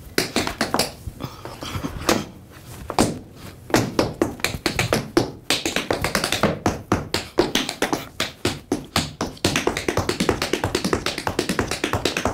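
Metal-tipped tap shoes striking a wooden stage floor in a tap dance: a few scattered taps at first, then from about four seconds in a fast, dense run of taps.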